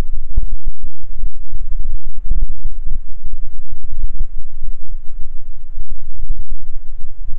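Wind and handling noise buffeting the camera's microphone as it moves: a loud, distorted low rumble that overloads and drops out in many brief gaps.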